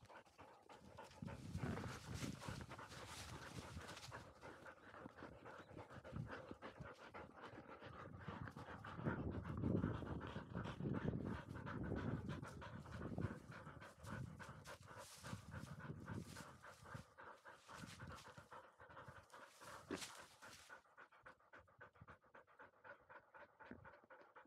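Labrador retriever panting rapidly and hard, right against the microphone of a camera worn on the dog, out of breath from running.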